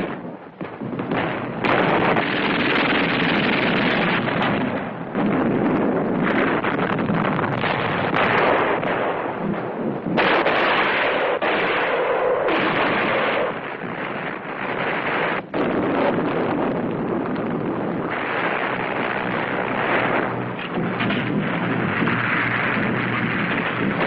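Battle sounds: a dense din of gunfire and explosions that cuts abruptly from one stretch to another several times.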